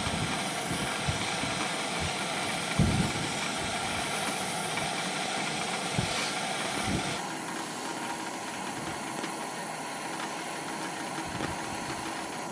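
Gas-canister camp stove burner running with a steady roaring hiss, which turns softer and duller about seven seconds in. Gusts of wind thump on the microphone underneath.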